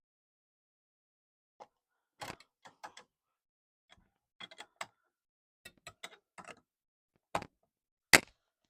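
Irregular clicks and knocks of a SharkBite push-fit fitting and its disconnect tongs being worked to free a copper pipe, with the sharpest knock near the end.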